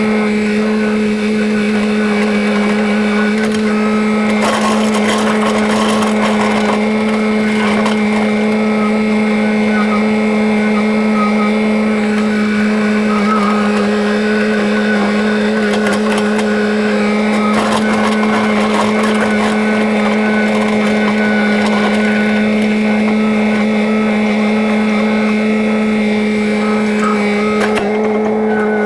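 An engine running at a steady, unchanging speed, with a constant hum.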